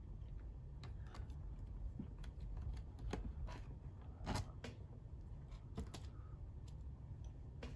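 Scattered light clicks and taps of a screwdriver and small screws being handled against a laptop's plastic bottom case, with a slightly louder tap about four seconds in.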